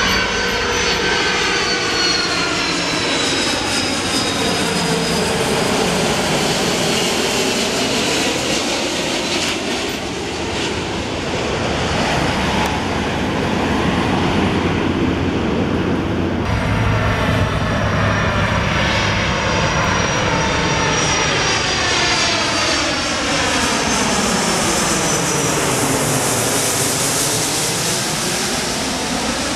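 Two Airbus A330 airliners on final approach, one after the other, passing low overhead with their landing gear down. The jet engines make a steady, loud noise with a high fan whine, and a phasing whoosh sweeps down and back up in pitch as each one goes over. About halfway through there is an abrupt cut from one plane's sound to the next.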